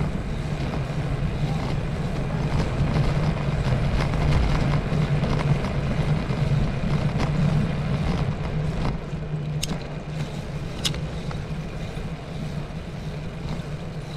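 Riding noise of a bicycle on a city street, heard through a camera fixed to the bike: a steady low rumble that eases a little about eight seconds in, with two sharp clicks around ten seconds in.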